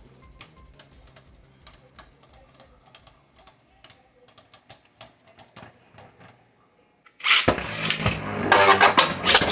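Spinning Beyblade tops in a plastic stadium: for about seven seconds there are faint scattered clicks as they knock together. Then a sudden loud rattling clatter of rapid hits and scraping starts.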